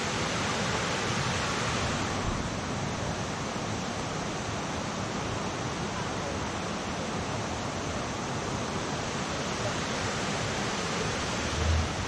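Steady rush of water from the cascades of Kuang Si Falls spilling over low ledges between pools.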